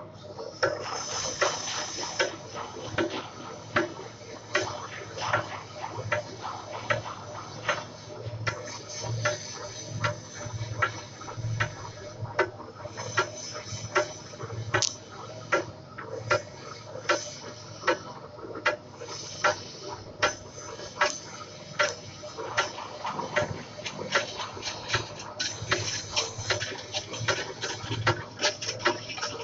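Metal lathe taking a light finishing cut across a large 700 mm pipe: a steady machine hum with a sharp metallic click repeating evenly a little faster than once a second.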